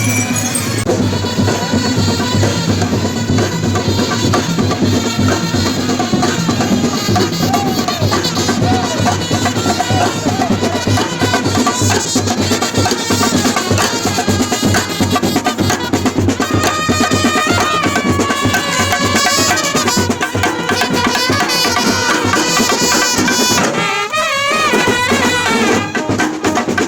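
Loud music with dense, fast drumming and a pitched melody played over it, with a brief break about 24 seconds in.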